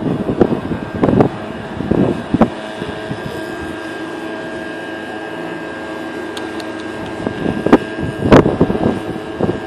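Wind buffeting the microphone in gusts over a steady machine hum. The gusts come in the first couple of seconds, ease off in the middle and pick up again near the end, where there is one sharper knock.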